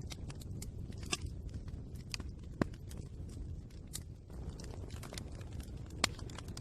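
A fire crackling: a steady low rumble with irregular sharp crackles and pops, two of them louder, one a little before halfway and one near the end.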